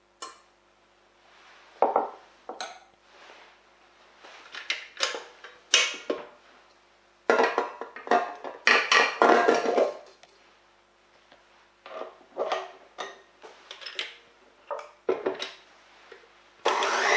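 A stainless steel mixing bowl clanking and clicking against a stand mixer as it is set and locked in place and the whisk is fitted, a series of sharp metallic knocks. Near the end the stand mixer switches on and runs steadily, beating egg yolks.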